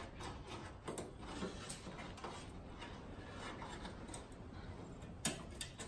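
Faint scattered clicks and scrapes of a small hand screwdriver backing out the little screws of a Datsun 620's chrome headlight trim, with a sharper click about five seconds in.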